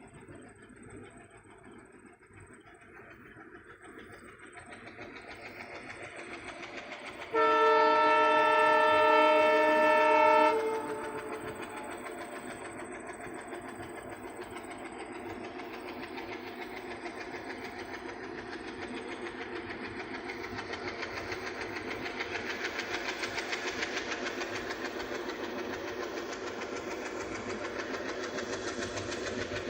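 Indian local train approaching, growing louder, then sounding its horn in one steady blast of about three seconds. After the horn the train runs past with a continuous rumble and rapid clickety-clack of wheels over the rails, swelling and staying loud to the end.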